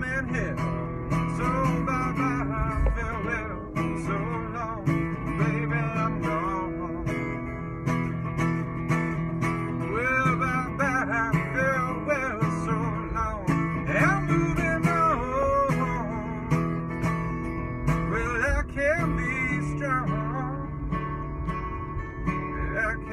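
A man singing a song while accompanying himself on acoustic guitar, live inside a car.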